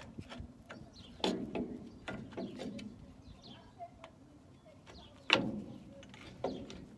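Scattered metal clicks and knocks from hand tools and parts while working on a truck's drum brake springs, the loudest about a second in and past the five-second mark.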